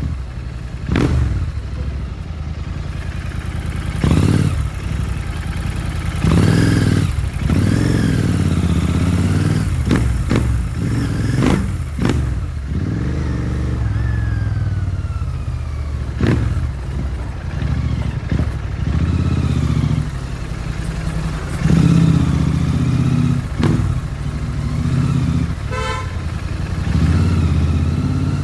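Royal Enfield Continental GT650's 648 cc parallel-twin engine running through an aftermarket Powerage short cone exhaust while the bike is ridden, the revs rising and falling with the throttle.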